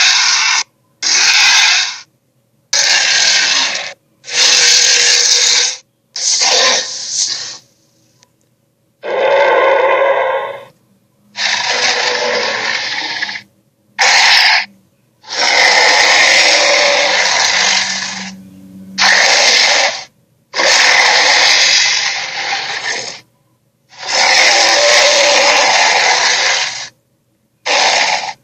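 Fantasy creature sound effects: a series of about a dozen harsh, raspy roars and hisses, each lasting from half a second to three seconds with short silent gaps between them. One call about ten seconds in is more pitched, like a screech.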